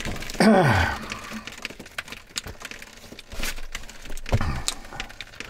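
Scattered light clicks and knocks of hands working a shutoff valve and braided supply-line fittings under a sink, with a short falling vocal groan about half a second in.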